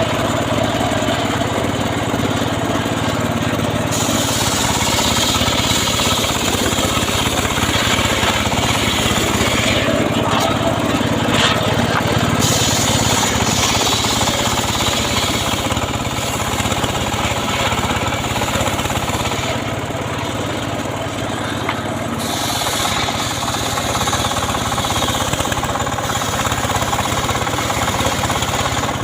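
Engine of a home-built sawmill rig running steadily while the saw cuts sengon (albizia) wood. The cutting adds a bright hissing layer that comes in about four seconds in, drops out around ten seconds, returns from about twelve to nineteen seconds and again from about twenty-two to twenty-six seconds.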